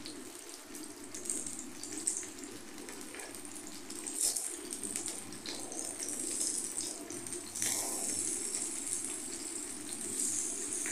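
Hot oil sizzling in a shallow pan as besan-coated bottle gourd slices are laid in one by one; the sizzle gets louder about two thirds of the way through as more slices go in, with a few short sharp spits as pieces hit the oil.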